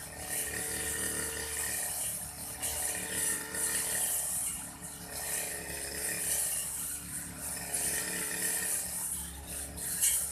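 Old Aldo brush cutter's small engine running at high speed while cutting grass, its level rising and dipping every second or two.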